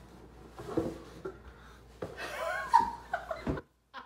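Rustling and light knocks of a cardboard box lid being lifted off, then about two seconds in a woman's wordless, high excited squeal lasting over a second and cutting off abruptly.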